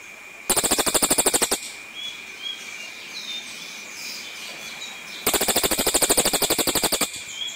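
Cililin (black magpie) giving harsh, rapid rattling calls in two bursts, the first about half a second in lasting about a second and the second starting about five seconds in lasting nearly two. A steady high whine and a few faint chirps run underneath.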